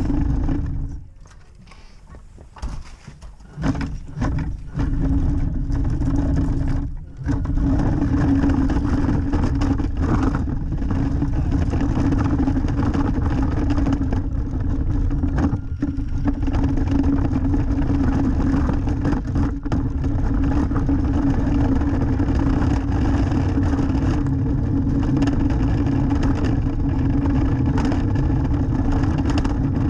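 Drivetrain and wheels of a 1/14 RC semi-truck hauling a loaded lowboy trailer over concrete, heard from a camera riding on the trailer: a steady hum over a rolling rumble. It falters and stops briefly in the first few seconds, then runs evenly.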